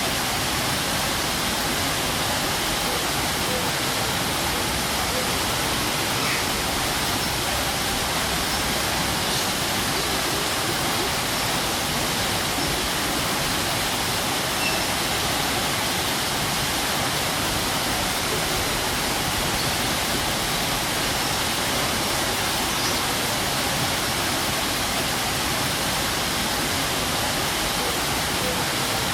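Strong waterfall: a steady, unbroken rush of falling water.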